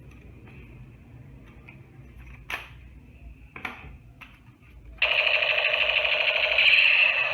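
Battery-powered toy gun: a few light plastic clicks, then about five seconds in a loud electronic buzzing firing effect that starts suddenly and runs for a couple of seconds.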